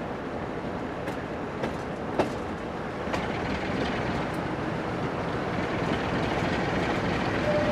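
Class 47 diesel locomotive running under power, its Sulzer V12 engine and wheels making a steady noise, heard from the train's window. The wheels click over rail joints a few times, and the sound grows a little louder from about five seconds in. A horn note begins right at the end.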